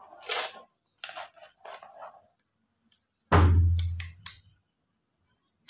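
Handling noises of a clamp meter and its test leads being picked up and worked: short rustles and clicks, then a sudden loud low thump a bit over three seconds in that fades over about a second, with three sharp clicks on top of it.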